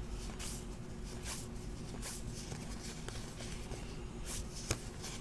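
Trading cards handled and flipped through by hand: a series of soft, short rustles, about one or two a second, with a sharper click late on over a faint steady hum.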